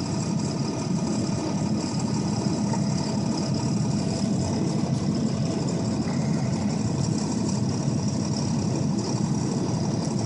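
Steady engine and road noise inside the cab of a 2002 Ford F-250 pickup driving through deep snow, over ten inches of it, with no change in pace.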